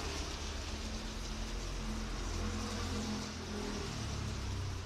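Steady hiss of falling rain with a motor vehicle's engine hum running underneath; the hum drops lower in pitch near the end.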